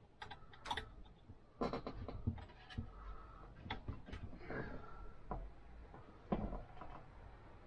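Small irregular clicks, taps and knocks of cables and plug connectors being handled and pushed into the ports at the back of a desktop PC.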